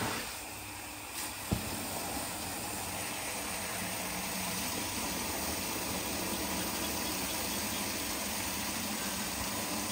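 A steady low motor hum, like an engine or pump running, with one short knock about one and a half seconds in.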